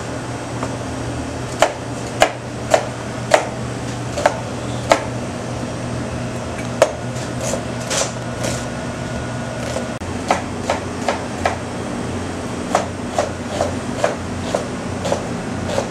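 Chef's knife chopping onion on a plastic cutting board: sharp, irregular knocks, one or two a second, in two spells. A steady low hum runs underneath.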